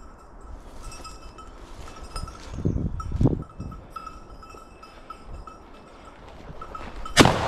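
A hunting dog's collar bell jingling faintly as the dog works through cover, with some louder rustling a few seconds in. Near the end, a single shotgun shot at a flushed woodcock.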